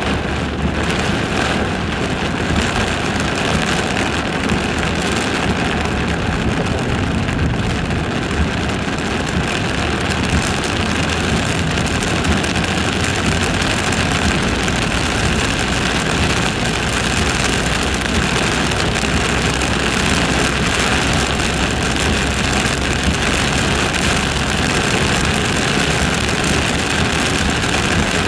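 Steady noise inside a car driving through heavy rain: engine and tyres on a wet road, with rain hitting the windscreen and body. The high hiss grows stronger about ten seconds in.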